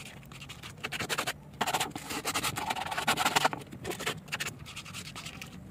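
Plastic-bristled brush cap of an aerosol foam cleaner scrubbing a foam-covered car handbrake lever in rapid back-and-forth strokes, working the cleaner into the grime. The scratching is loudest in the middle.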